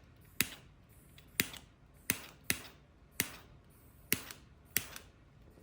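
A hand lighter's igniter clicked over and over, about eight sharp clicks at irregular spacing, while flaming bubbles out of freshly poured epoxy resin.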